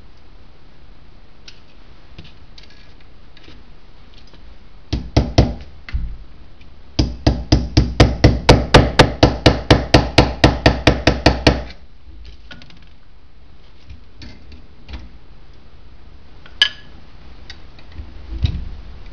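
Claw hammer tapping on a socket held over a part of a Jaguar E-Type brake pedal box, driving the part down into place. A few strikes come about five seconds in, then an even run of some twenty quick taps at about five a second, and a lone metallic click near the end.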